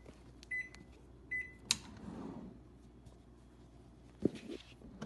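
Panasonic microwave's timer beeping to signal that the time is up: two short high beeps less than a second apart, then a sharp click. A couple of light knocks come near the end.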